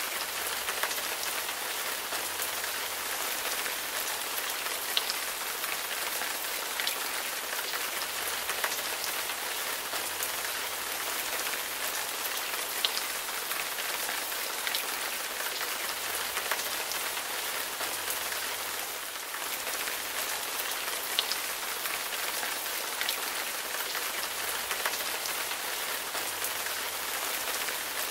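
Steady rain falling on puddled water and the ground around it, with the odd louder single drop ticking close by.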